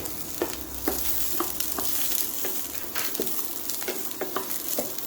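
Sliced elephant foot yam with onions, garlic and ginger sizzling in oil in a frying pan, stirred with a spoon that scrapes and clicks against the pan at irregular moments.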